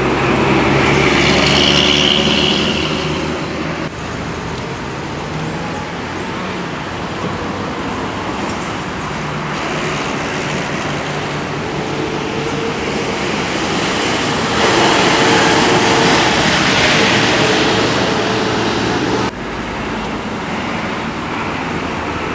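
Road traffic with buses passing: heavy diesel engines running and tyre noise, with two louder passes, one at the start and one about two-thirds of the way through, that cuts off suddenly.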